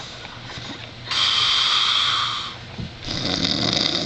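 Heavy snoring: two loud, rasping snore breaths, the first about a second in and the second starting about three seconds in with a deeper rumble.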